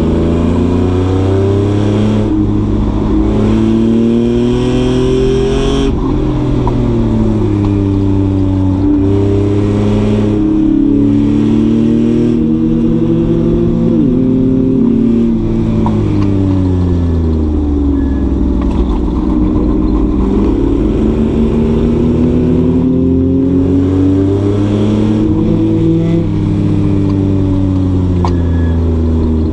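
Race car engine running hard on track, its pitch climbing and falling several times as the car accelerates and slows through the corners.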